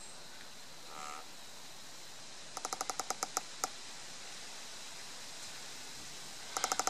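Hollow, rotted trunk of a lightning-struck tree creaking as it sways, in two runs of quick creaks, about seven a second, a third of the way in and again near the end. Creaking like this is the sign of a tree rotted out inside and unsafe to stand under.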